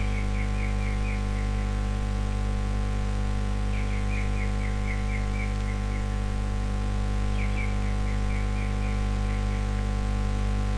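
Steady electrical mains hum in the recording, a low buzz with evenly spaced overtones, over which short runs of faint high ticks come and go every few seconds.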